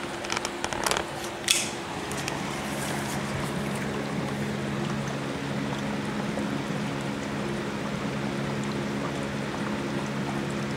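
HHO electrolysis generator running at about 36 amps, its electrolyte and gas fizzing and bubbling steadily, with a steady electrical hum that gets louder about two seconds in. A few clicks and a sharp knock come in the first two seconds.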